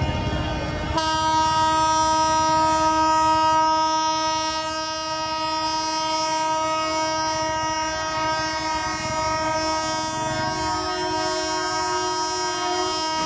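Train horn blown in one long unbroken blast of several notes at once, starting abruptly about a second in and held for some twelve seconds: a warning for people to clear the level crossing.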